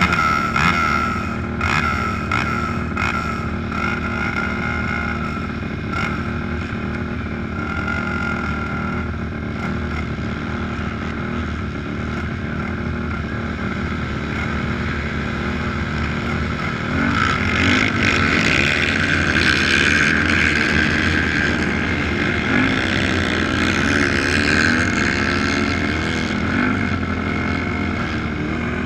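Race quads idling together on a start line, a steady engine drone. From about seventeen seconds in it grows louder and the pitch wavers as engines are revved.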